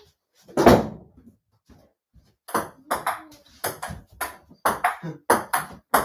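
A table-tennis rally on a small table: the celluloid ball clicks sharply off the table top and the paddles, often in quick pairs of bounce and return, coming faster from about two and a half seconds in. A single louder knock comes about half a second in.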